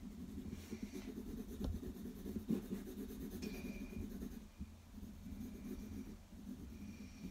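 Graphite pencil shading on sketchbook paper: a steady scratching of rapid back-and-forth strokes, with a couple of light taps early on and a short pause about halfway through.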